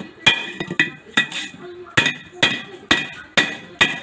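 Hammer striking repeatedly, about two blows a second, each with a short metallic ring, breaking into the cement that fills a small 110 V welding machine.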